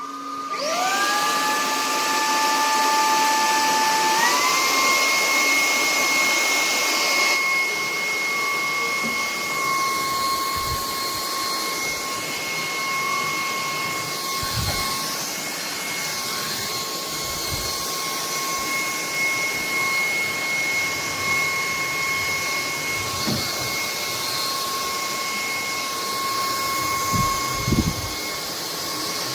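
Bulelink cordless stick vacuum's motor switching on and spinning up with a rising whine, stepping up to a higher pitch about four seconds in, then running at a steady high whine. A few low knocks come through, most around the middle and near the end.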